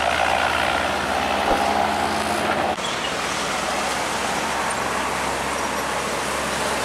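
Road traffic noise with heavy cement mixer trucks' diesel engines running as they pass. The sound changes abruptly a little under three seconds in.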